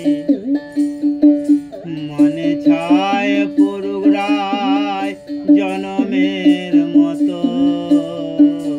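Background music: a plucked string instrument picking quick repeated notes over held, wavering melody tones.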